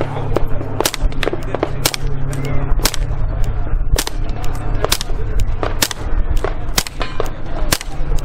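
A .22 firing through a Q Erector suppressor in its short five-baffle configuration: about eight sharp shots at a steady pace of roughly one a second, pretty quiet for the short setup. A steady low hum lies underneath.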